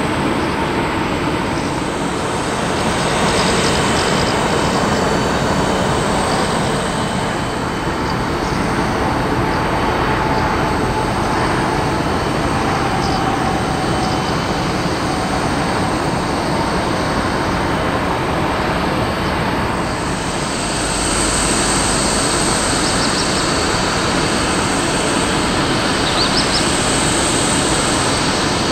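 Steady jet aircraft noise, an even rushing roar with no rise or fall in pitch. About twenty seconds in it dips briefly, then comes back with a fuller low rumble.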